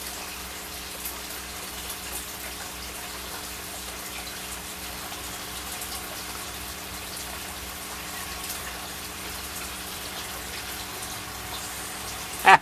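Steady, even hiss under a faint low hum, with a short, much louder sound right at the end.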